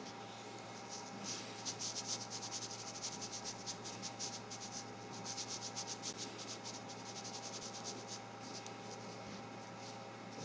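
Fine-tip Fudepen brush pen stroking over glossy photo-quality paper: rapid short strokes, several a second, in two quick runs with a brief pause between them and sparser strokes near the end.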